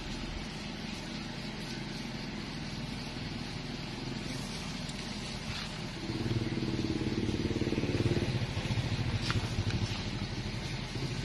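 A motor engine running steadily, growing louder about six seconds in.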